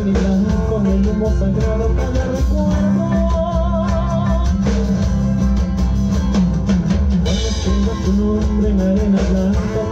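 Live band playing through a PA system: drum kit, guitars and bass with a melody line over a steady beat.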